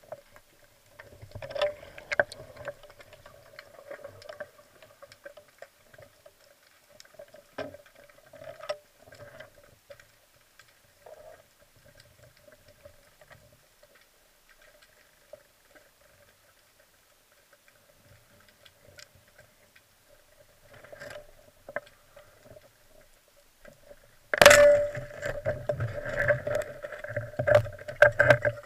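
Underwater sound picked up through a camera housing: a faint steady hum with scattered clicks and knocks, then about 24 seconds in a sudden, much louder rush of water noise with rumbling and knocking.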